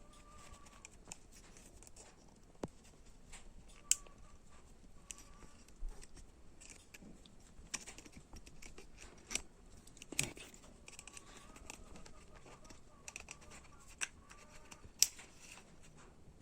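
Scattered sharp metallic clicks and short scrapes of small parts and hand tools as a circlip is worked into the piston-pin groove of a motorcycle piston, with a few louder snaps spread through.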